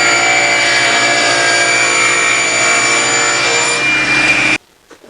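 Table saw running and cutting wood: a steady whine with the noise of the blade in the stock, cutting off abruptly near the end.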